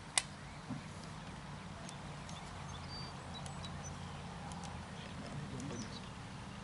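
A single sharp click just after the start, then a faint steady low hum with scattered small ticks and a few short, high chirps.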